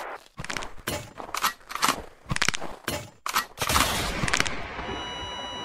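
About a dozen sharp bangs in an irregular burst. Near the end they give way to a steady, high ringing tone with overtones.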